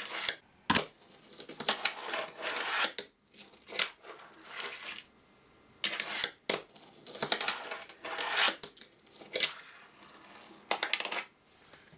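Irregular clicks and taps of small hard objects being handled and pressed on a desktop, coming in short clusters with brief pauses between them.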